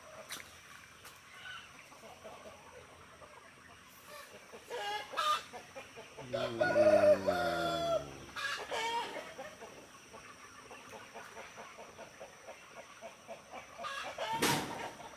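Free-range chickens under pomelo trees: a rooster crows once, a long crow from about six to eight and a half seconds in that is the loudest sound, with shorter chicken calls around it.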